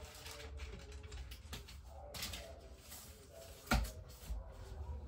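School books being handled on a bed: faint rustling of pages and covers, with a sharp knock about three and a half seconds in as a book is set down.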